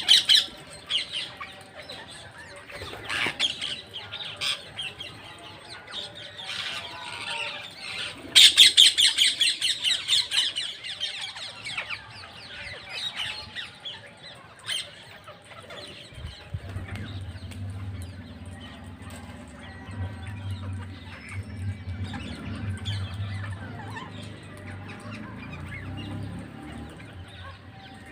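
Parrots squawking and chattering, with the loudest run of quick, repeated calls about eight seconds in. From about halfway, the calls grow fainter over a low steady hum.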